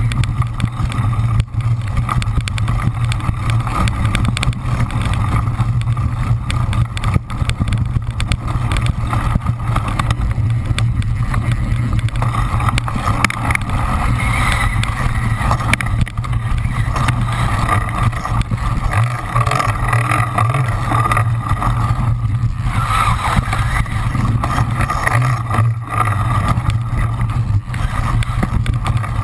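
Steady wind rumble and rattle on a camera riding on a cyclocross bike at race speed over dirt and sand, with jolts from the rough ground.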